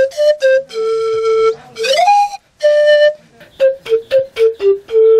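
Cane pan flute played solo in a breathy melody of short notes and a few held ones, with an upward slide about two seconds in, a quick run of short notes, and a long held note starting near the end.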